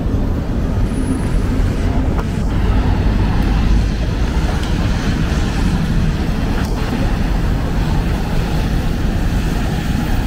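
Steady city traffic noise from cars on wet downtown streets, an even rush with no single vehicle standing out.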